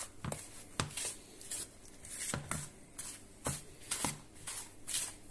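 Plastic spatula scraping and cutting through butter and flour in a plastic mixing bowl, in short irregular strokes about two a second. The butter is being cut into the flour toward a breadcrumb-like texture for cake batter.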